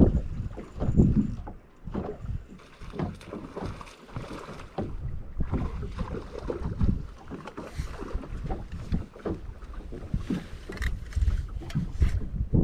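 Wind buffeting the microphone in irregular low gusts, with small waves slapping against a bass boat's hull.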